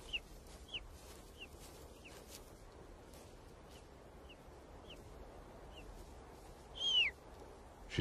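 Golden eagle chicks calling while being fed in the nest: a string of short, high, downward-slurred cheeps, one every half-second to second, with one louder, longer call about seven seconds in.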